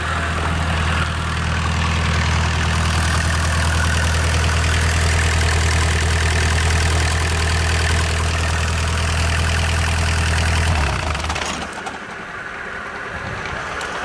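Engine driving a board edger runs steadily at idle, then is shut off about eleven seconds in. The belt and saw blades keep coasting with a fainter, fading whir, carried on by their momentum.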